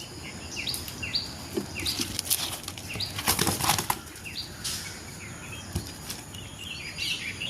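Parrots flapping their wings with a run of short, repeated chirps about twice a second, and several sudden fluttering bursts.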